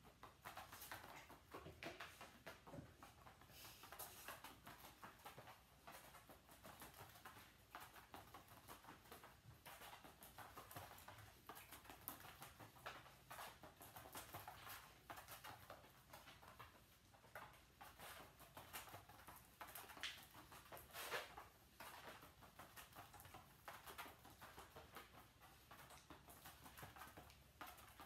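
Faint, irregular patter of a dog's paws and claws as it runs back and forth between two cones on floor mats, with scattered soft taps.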